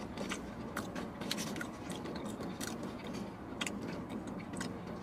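A person chewing and eating chicken wings, with irregular small clicks and smacks of mouth and fingers and of food handled in a plastic takeout container, over a faint steady hum.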